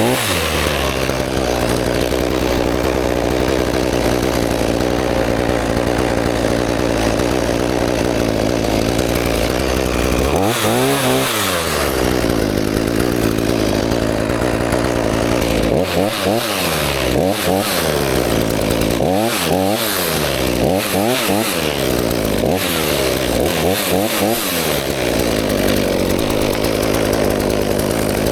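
Two-stroke chainsaw engine held at high revs for about ten seconds, dropping and revving back up once. It then falls and rises in pitch over and over, about every one and a half to two seconds, as the throttle is let off and squeezed again.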